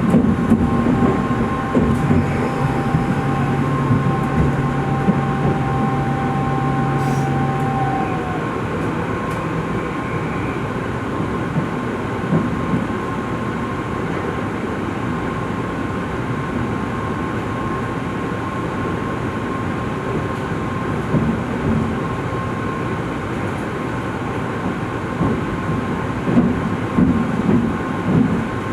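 Tokaido Shinkansen train running, a steady rumble with a thin, steady whine over it. A lower hum and a second whine stop about eight seconds in.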